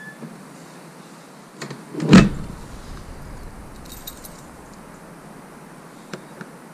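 Caravan door shut with one loud thump about two seconds in, then keys jangling and a few light clicks as a key goes into the door lock to lock it.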